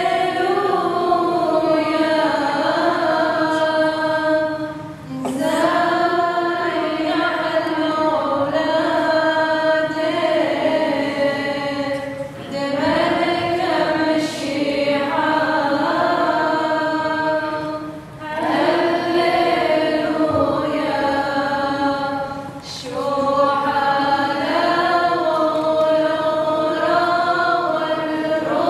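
A choir singing a slow melody in long held phrases, with short breaks between phrases about every five or six seconds.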